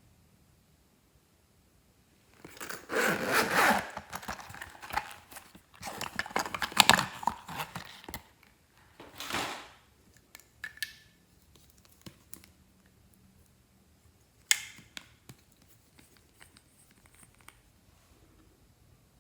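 Glossy slime being handled and mixed by hand: several bursts of wet, crackling squishing, the longest in the first half, then scattered small clicks and one sharp click about two-thirds of the way in.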